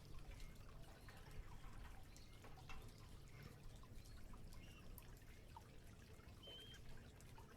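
Canaries bathing, faint: scattered drips and small splashes of water, with light clicks.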